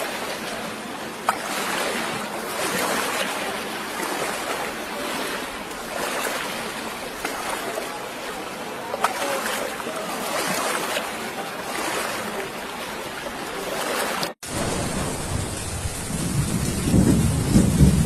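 Wind and sea noise on a boat's deck: a steady rushing hiss. About fourteen seconds in it cuts off briefly and gives way to a louder, deeper rumble.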